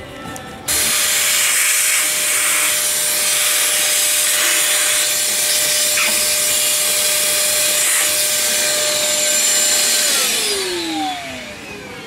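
Shop wet/dry vacuum switched on with a sudden start, its motor running steadily with a steady whine while it sucks dirt from around the fuel injector ports. About ten seconds in it is switched off, and the whine falls in pitch as the motor spins down.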